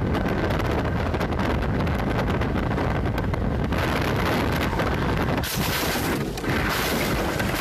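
Wind buffeting a phone's microphone inside a moving car, over steady road and car noise, turning hissier in the last two seconds.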